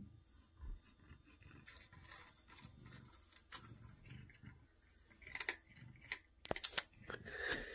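Cat eating from a stainless-steel bowl: faint chewing and small clicks, with a few sharper metallic clinks against the bowl about five to seven seconds in.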